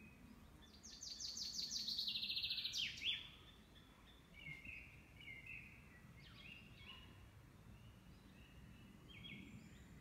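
Songbirds singing: one loud song about a second in, a quick run of repeated descending notes ending in a sharp final note around three seconds, then softer short whistled phrases from other birds.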